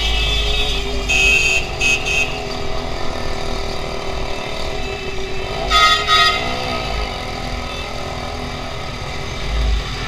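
Heavy street traffic heard from a motorcycle: a steady rumble of engines, with two short vehicle horn honks about a second in and two more around six seconds in.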